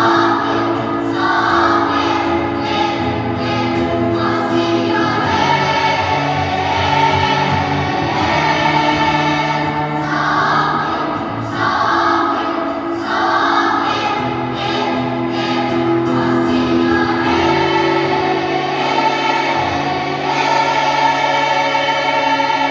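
School choir singing in harmony, several voice parts holding long sustained notes that shift pitch together.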